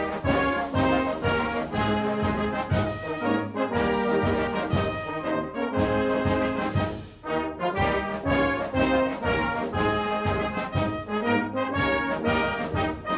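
Brass band playing live, full ensemble, with a steady beat running through the music. There is a brief drop in loudness about seven seconds in before the band comes back in.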